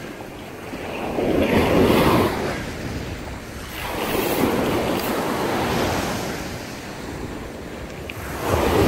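Ocean surf breaking and washing up a sandy beach, swelling and easing three times, the last swell the loudest near the end.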